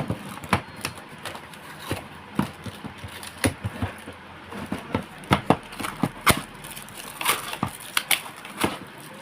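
Irregular sharp clicks and knocks, a dozen or so, from hands working the casing of an Epson L380 printer to release a lock on its side.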